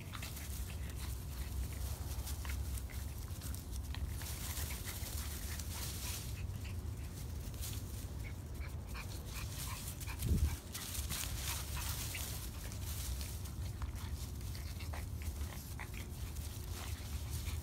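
Boston Terrier puppies play-fighting on grass: short, high puppy whines and small vocal noises among rustling, over a steady low rumble. A single louder thump about ten seconds in.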